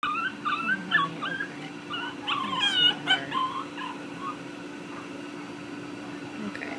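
A dog whimpering: a quick series of short, high whines, each rising and falling in pitch, over the first three and a half seconds or so, then dying away. A steady low hum sits underneath throughout.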